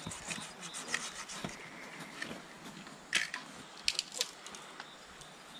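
Dry dead branches being snapped by hand for firewood: a few sharp cracks of breaking wood, the loudest about three seconds in and two more around four seconds, among smaller crackles and rustling.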